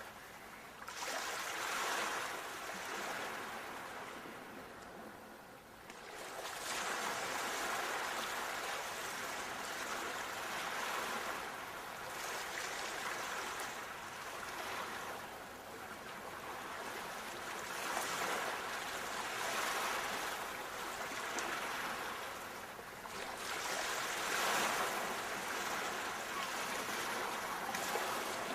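Sea waves washing ashore, the surf rising and falling in slow swells every few seconds.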